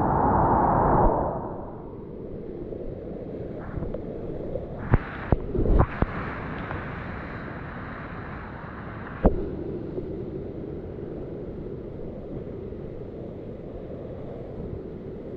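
Whitewater rapids churning around a kayak, heard close to the water, with a louder rush of water in the first second or so. Several sharp knocks come about five to six seconds in and another about nine seconds in.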